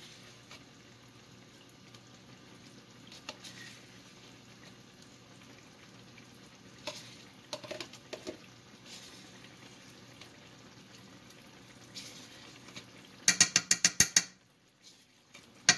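A metal spoon scooping yogurt into a pot of simmering stew: a quiet kitchen background with a few soft clicks, then near the end two short runs of loud, rapid clicking, about ten clicks a second, as the spoon rattles against the container.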